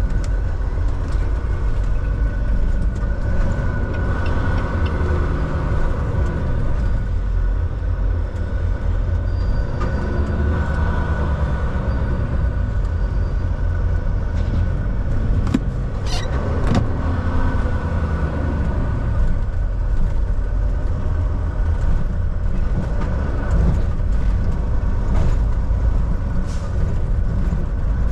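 Volvo semi-truck heard from inside the cab while driving: a steady low engine and road drone with a faint steady whine over it, and a few sharp clicks about halfway through.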